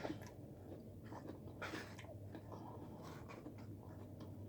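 Faint chewing of food, soft mouth noises with a few small clicks, over a low steady hum.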